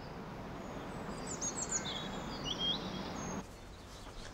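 Outdoor ambience: a steady background hiss with a few brief, high songbird chirps in the middle. The hiss drops away suddenly near the end.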